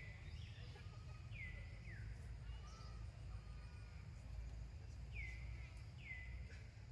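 Four short, high chirps that fall in pitch, in two pairs: one pair about a second and a half in, the other past five seconds in, over a faint steady low rumble of outdoor ambience.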